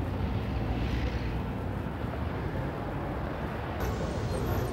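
Steady rumble of city street traffic, with the sound changing abruptly at a cut in the film near the end.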